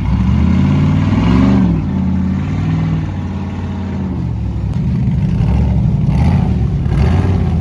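Engine of an off-road race buggy running, with a short rev about a second in that rises and falls in pitch, then running fairly steadily.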